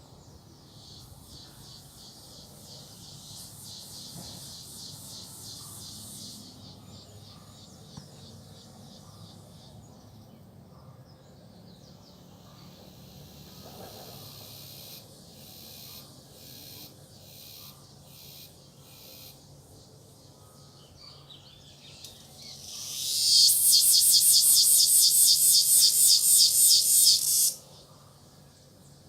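Cicadas calling with a high, pulsing buzz that waxes and wanes. About three-quarters of the way through, one swells quickly into a much louder pulsing drone, holds for about five seconds, then cuts off suddenly.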